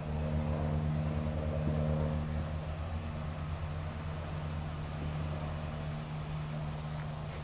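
A vehicle engine idling steadily, a low even hum, a little louder in the first couple of seconds.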